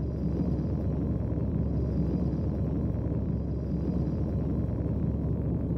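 Steady low rumbling drone from the outro's sound design under the animated end card, with a faint high tone now and then.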